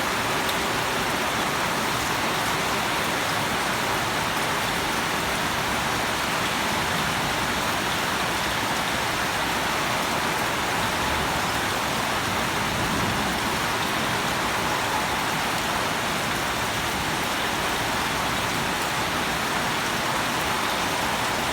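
Steady rain falling, an even continuous hiss of drops on surfaces.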